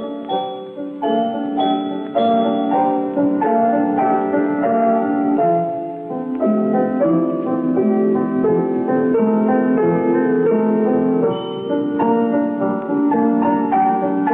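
Background music: a piano playing a steady stream of notes, several a second.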